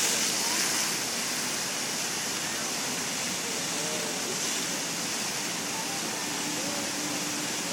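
Many vertical water jets of a plaza fountain spouting and splashing onto wet stone paving: a steady rushing, hissing spatter of water, a little louder in the first second while the jets are at their fullest, then even.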